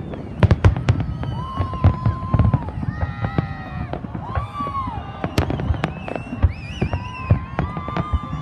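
Aerial fireworks shells bursting in quick succession: a dense string of bangs and crackles, with the loudest reports in the first second or so.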